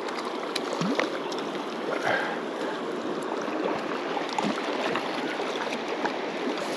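Stream water running over rocks: a steady rushing hiss.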